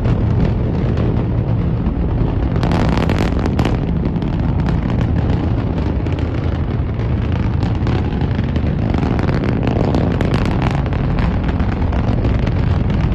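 Long March 5 rocket's engines during ascent, heard from the ground: a loud, steady deep rumble with crackling.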